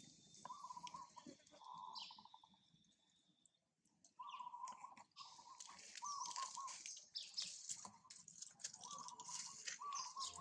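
Baby long-tailed macaque crying: a string of short, high coos, about eight in all, with a quiet gap partway through. Faint high chirps sound behind.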